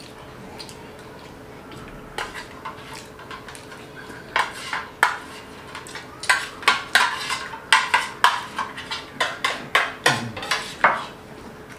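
Metal spoons scraping and clinking against stainless-steel plates as food is scooped up. Faint at first, then a quick run of sharp scrapes and clinks from about four seconds in.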